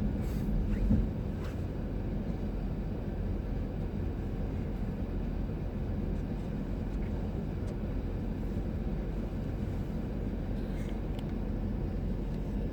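Blizzard wind blowing steadily across the microphone, a low, even rush of noise with no pitched tone.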